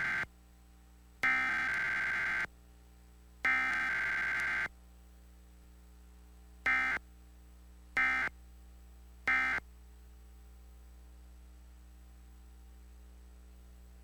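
Emergency Alert System SAME digital header bursts for a Required Weekly Test: the end of the first burst, then the second and third, each about a second of shrill data tones. Then come three short end-of-message bursts about a second and a half apart, followed by a faint steady hum.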